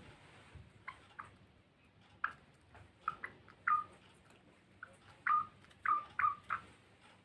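Pet finches calling: about a dozen short chirps, some dropping quickly in pitch, coming in loose clusters, the loudest in the second half.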